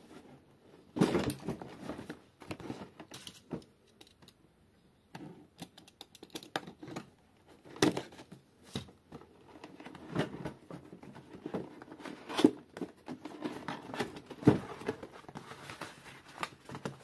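A car speaker's box and packaging being opened and handled by hand: irregular rustling and crinkling with scattered knocks, the loudest about a second in.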